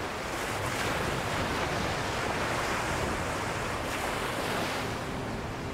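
Small sea waves washing up on a sandy beach, a steady surf hiss that swells again about four seconds in.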